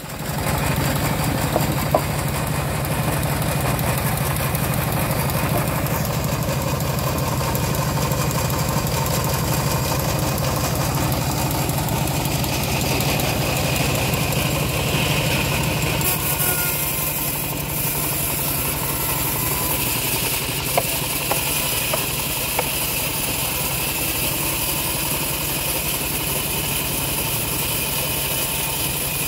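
Homemade engine-driven bandsaw mill running steadily, its blade ripping a dry acacia log lengthwise into planks, with a few sharp knocks along the way.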